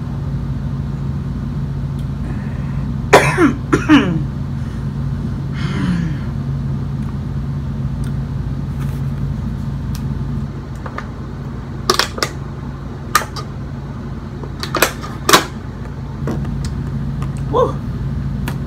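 A woman coughing hard from dry cornstarch in her throat: two loud coughs a few seconds in and several sharper ones later, over a steady low hum.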